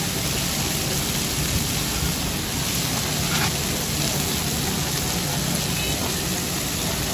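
Chicken thigh steaks sizzling steadily on a large flat-top griddle, with a light scrape of metal tongs on the plate about three and a half seconds in. The audio is played in reverse.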